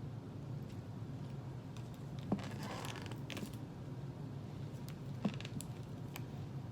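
Faint crinkling as the paper label is peeled off a plastic soda bottle, with two sharp clicks, over a steady low hum.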